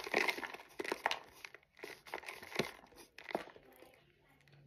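Cornstarch being chewed, crunching and crackling in short bursts with sharp clicks, dying down about three and a half seconds in.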